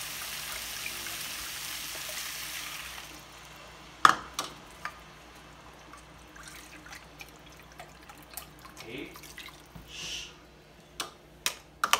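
Chicken pieces sizzling in a hot frying pan, the sizzle dying away about three seconds in as chicken broth goes into the pan. Then broth trickles from a carton into a measuring cup, with a sharp knock about four seconds in and light clicks of the cup and wooden spoon against the pan.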